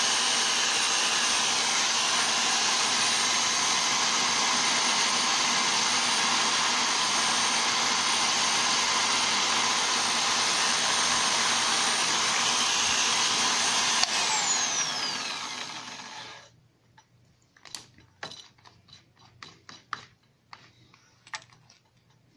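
Electric drill in a jig spinning a golf club ferrule on a mandrel, running steadily while sandpaper is held against it to shape the ferrule round. About fourteen seconds in it is switched off with a click and winds down with a falling whine, followed by a few light clicks and taps as the part is handled.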